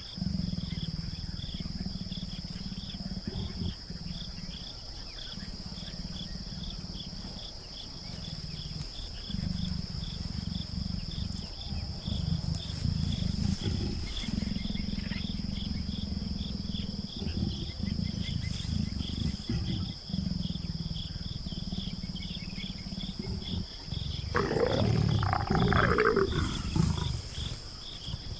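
A mating pair of leopards growling low and repeatedly, with a loud snarl about 24 seconds in. Insects keep up a steady high chirring throughout.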